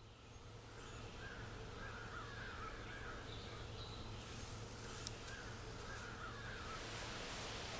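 A bird calling in two warbling phrases of about two seconds each, over a steady outdoor background hiss and low hum, with one short tick about five seconds in.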